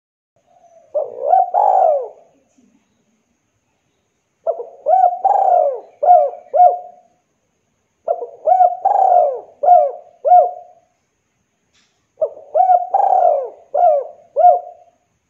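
A spotted dove (derkuku) cooing, with four phrases a few seconds apart. The first phrase is short; each of the others is a long coo ending in two quick, clipped notes.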